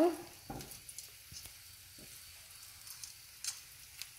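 Breadcrumbed chicken Kiev shallow-frying in oil in a skillet: a faint sizzle with a few scattered pops.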